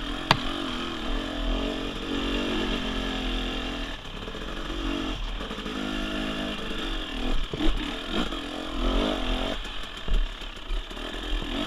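KTM 500 single-cylinder four-stroke dirt bike engine pulling along a rough trail, its note rising and falling as the throttle is opened and closed. A few sharp knocks sound as the bike hits bumps.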